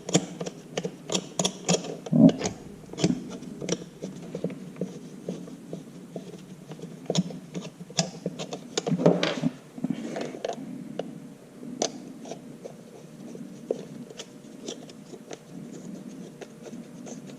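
Irregular small clicks, taps and scrapes of hands handling and fitting parts of a motorized pan-tilt camera head, with a denser cluster of clicks about nine seconds in.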